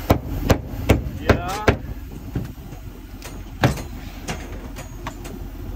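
A series of about a dozen sharp knocks, evenly paced at first and then further apart, over a steady background rumble.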